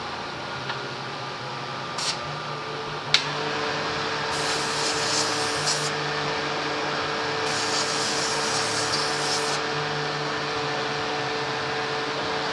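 A small electric motor switches on with a click about three seconds in and runs steadily, with two bursts of hissing over it.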